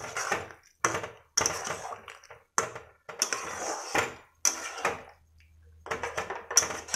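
A spatula scraping and stirring through thick curry in a metal kadai, in about seven short strokes with a pause about five seconds in.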